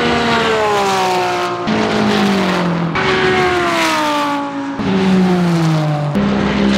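Race car engines at high revs on the circuit. The engine note falls in pitch over a second or two, then jumps back up, about four times in a row.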